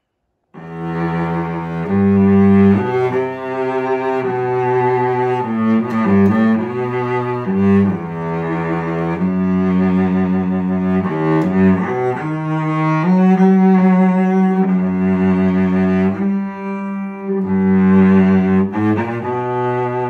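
A Czech cello made around 1920 on the Stradivari pattern, bowed solo in a slow melodic passage. It plays long held notes in the low and middle register, starting about half a second in.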